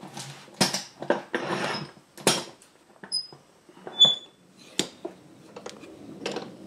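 Wooden clock case being handled and clamped into a bench vise: a string of knocks and scrapes, with a few brief high squeaks about three to four seconds in.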